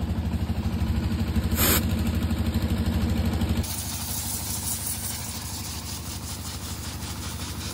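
An engine idling with a steady pulse while an air hose is held on a truck tyre valve, giving one short hiss of air about one and a half seconds in. After a cut at about three and a half seconds, a compressed-air nozzle hisses steadily as it blows dust out of a truck's air filter element, with the engine still running faintly underneath.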